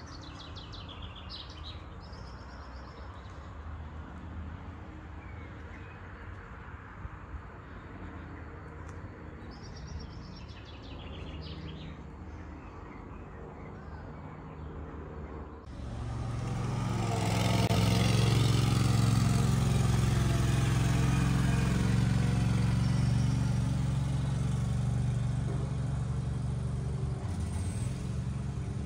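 Small birds chirping in short bursts over a steady outdoor background. About halfway through this gives way abruptly to a much louder motor vehicle engine running close by with a steady low hum, which slowly fades toward the end.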